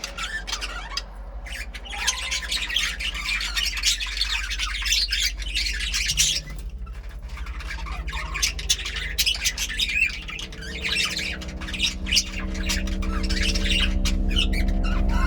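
Budgerigars chattering with dense, rapid chirps and squawks. In the second half a low steady drone rises in level beneath them.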